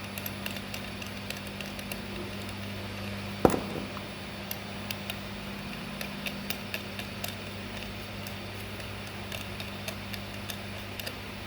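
Parts of a handheld laser welding gun being handled as its head is changed: scattered light clicks and one sharp knock about three and a half seconds in, over a steady low hum.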